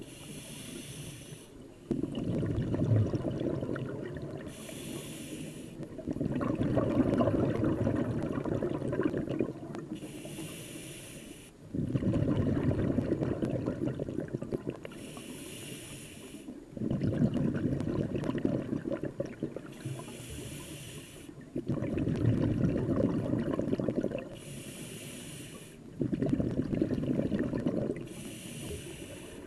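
Scuba diver breathing through an open-circuit regulator, heard underwater: a short hiss from the demand valve on each inhale, then a louder burbling rumble of exhaled bubbles. Seven breaths come at a steady pace of about one every four and a half seconds.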